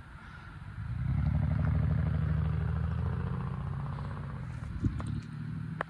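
A motor vehicle's engine running with a low, steady pitch. It comes up about a second in and slowly fades. A few sharp clicks come near the end.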